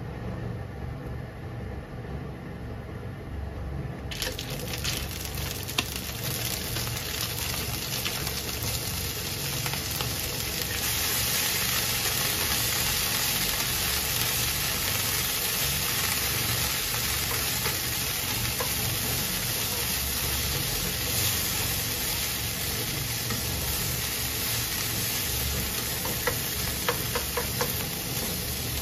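Bacon strips sizzling in oil in a nonstick frying pan. The sizzle starts suddenly about four seconds in, as the bacon goes into the hot pan, and grows louder a few seconds later. The bacon is stirred with tongs, with a few light clicks near the end, over a low steady rumble.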